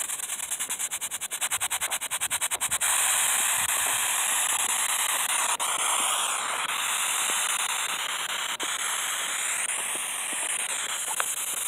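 Steady electronic static hiss. It pulses rapidly for about the first three seconds, then runs on evenly, with faint sliding whistles in it.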